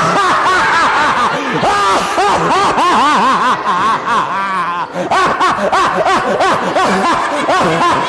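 A roomful of children and a man doing mock evil laughs all at once: many overlapping voices cackling in short rising-and-falling ha-ha's, dipping briefly a little past halfway before picking up again.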